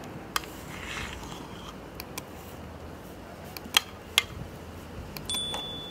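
A metal spoon stirring in an enamel bowl, scraping and clinking against the bowl's side with a few sharp taps spaced out over several seconds.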